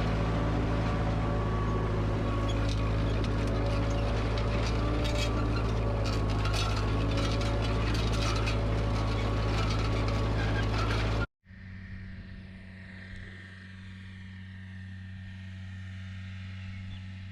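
Ford 2N tractor's four-cylinder flathead engine running steadily under load while pulling a disc harrow, with many small clanks and rattles over it. About eleven seconds in the sound cuts off abruptly, and a quieter steady engine drone follows.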